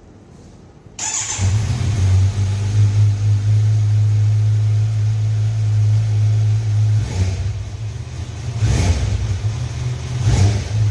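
Kawasaki Z900's inline-four engine running through its exhaust: a steady idle that comes in about a second in, then three short blips of the throttle near the end, each rising and falling.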